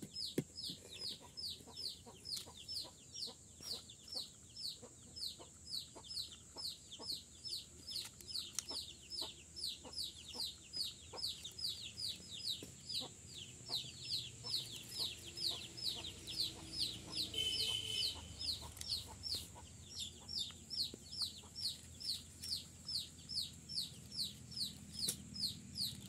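Young rose-ringed parakeets calling in a rapid, even series of short falling squeaks, about three a second.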